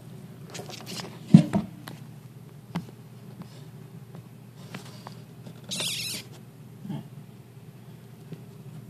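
A frightened pet lizard gives one short, hissy distress scream a little before six seconds in, after a sharp knock of handling about a second in and a smaller click a second later.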